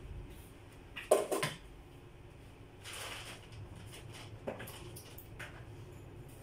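Kitchen handling sounds: a sharp clatter of a pot or utensils on the counter about a second in, then a softer rustle and a knock as a lower kitchen cupboard door is opened.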